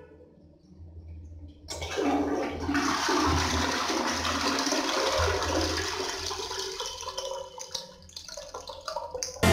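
Toilet flushing from a push-button cistern: the water rushes in suddenly a moment after the button is pressed, runs strongly through the bowl for several seconds, then eases off as it drains away near the end.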